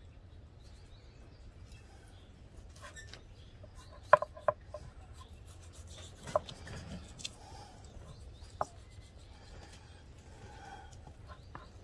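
Knife trimming sinew and fat from raw beef ribs: quiet cutting and rubbing, with a few sharp clicks, the loudest about four seconds in.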